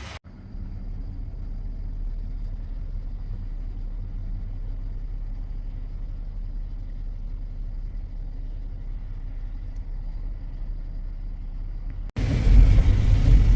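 Steady low rumble of a car driving, heard from inside the vehicle. About twelve seconds in it cuts to a louder rumble.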